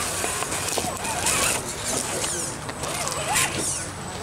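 Scale RC rock crawler driving over gravel and onto rocks: a thin high electric motor whine under irregular clicks and crunches of its tyres on the stones.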